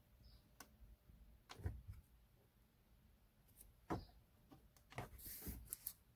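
Faint, irregular clicks and taps of a finger pressing the button on a mini USB LED light in a car's USB port, the sharpest about four seconds in, while cycling through its colours.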